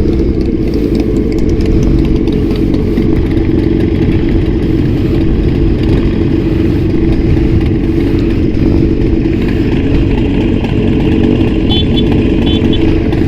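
Motorcycle with an Austin Racing aftermarket exhaust running steadily on a highway ride, its exhaust note loud and even with no revving up or down. A few faint short high chirps sound near the end.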